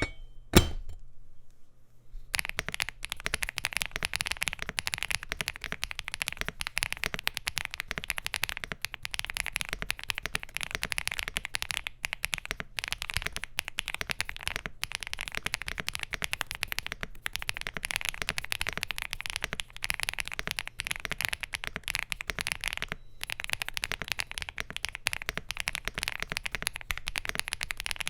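Rapid typing on a Bridge75 Plus mechanical keyboard with SC linear switches, an FR4 plate, PBT Cherry-profile keycaps and an aluminium gasket-mounted case. After a couple of single keystrokes, a dense, continuous clatter of keypresses starts about two seconds in, with a few brief pauses.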